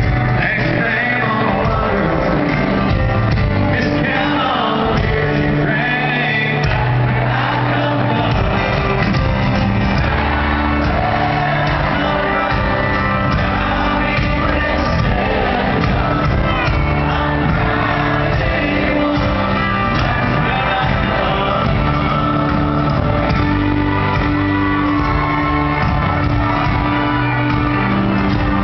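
Live band music with a singer, amplified through a stadium sound system, with shouting from the crowd mixed in. It sounds loud and continuous, as recorded from the stands.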